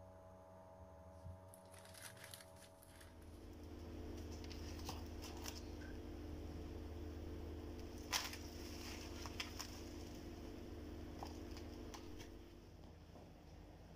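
Faint crinkling and clicking of cling film over foam trays as they are handled, a handful of short crackles with the loudest about eight seconds in, over a low steady hum.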